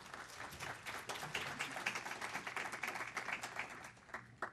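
Audience applauding: a few seconds of dense clapping that begins suddenly and thins out to a last few claps near the end.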